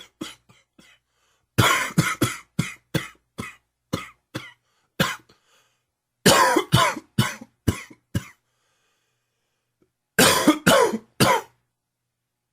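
A man's hacking smoker's cough, coming in three fits of quick, repeated coughs with short pauses between them. The first fit is about ten coughs long and the last about four.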